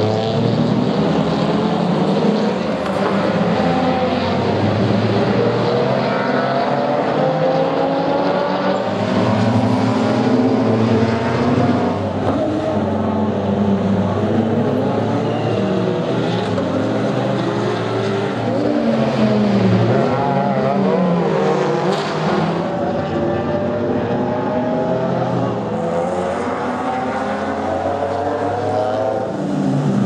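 Several racing car engines on the circuit, overlapping and continuous, their pitch climbing and dropping as the cars accelerate, shift and lift through the corners, with a Porsche 911 GT3 racing car among them in the second half.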